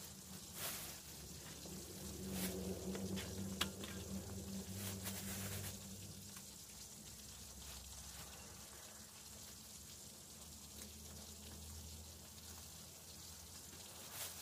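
Thin clear plastic bag crinkling and rustling as raw fish pieces are put into it, with a few sharper crackles in the first five seconds. A low steady hum sounds underneath and fades out about six seconds in.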